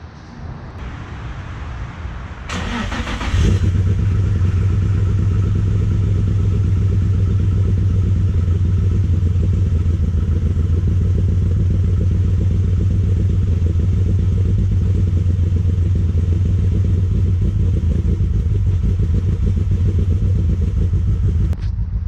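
Twin-turbo Nissan 350Z's 3.5-litre V6 cold-starting, heard close at the exhaust tips: it catches with a short loud burst about three seconds in, then settles into a loud, steady idle.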